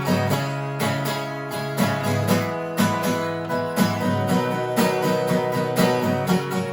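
Acoustic guitar played alone in an instrumental break, strumming and picking chords in a steady rhythm with the notes left ringing.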